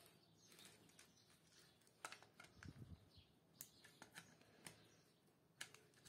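Near silence, with a handful of faint clicks and taps from about two seconds in, as wires and a screwdriver are handled against the plastic breaker box.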